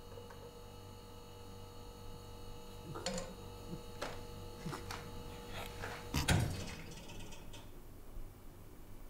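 Kitchen clatter of serving food: a spoon clinking a few times against a metal pot and a plate, then a heavier clunk about six seconds in, over a steady low hum.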